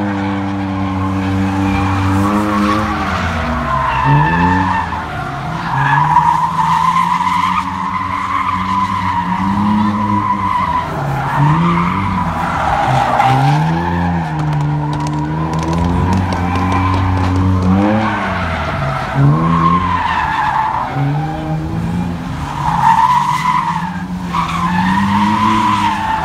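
Drift cars sliding, engines revving up and down again and again as the throttle is worked, over steady tyre screech.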